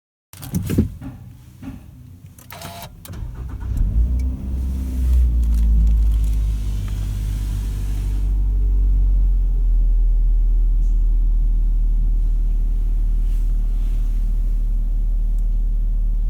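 Toyota Alphard engine being started: a few clicks and knocks, then it cranks and catches about four seconds in and settles into a steady low idle.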